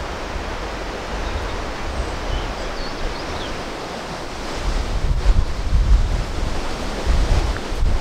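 Wind rushing steadily, buffeting the microphone in heavy low gusts that grow stronger about halfway through.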